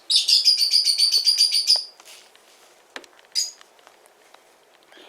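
Sun conure chick calling: a rapid run of harsh, high chirps for nearly two seconds, then one short call a little over three seconds in.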